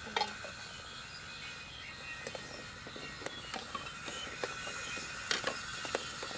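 Metal ladle clinking and knocking against an aluminium cooking pot while boiled eggs are scooped from the water, a scatter of short sharp clinks with the loudest few near the end.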